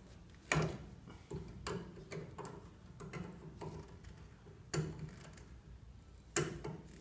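Pliers gripping and working a steel cotter pin out of a tie rod's castle nut: a string of irregular metal clicks and ticks, the sharpest about half a second in and again near five seconds.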